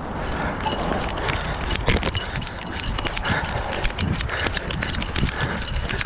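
Running footsteps on a concrete sidewalk, a quick, uneven patter of footfalls heard close up through a chest-strapped action camera, with the jostling of the mount and a steady low rumble underneath.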